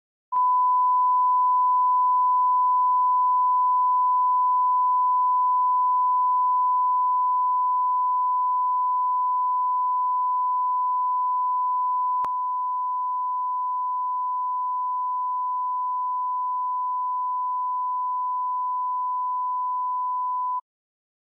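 Steady 1 kHz line-up tone played under television colour bars, the station's audio reference signal marked on the card as −18 dBFS. About twelve seconds in a click is heard and the tone steps down slightly in level, and it cuts off suddenly near the end.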